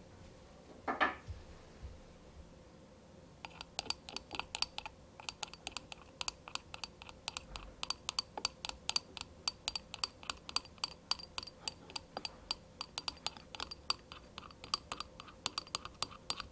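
Tiny wire whisk beating egg, milk and sugar in a small ceramic bowl: rapid, irregular light clicks of the tines against the bowl, roughly five a second, starting a few seconds in. A brief scraping sound about a second in is the loudest moment.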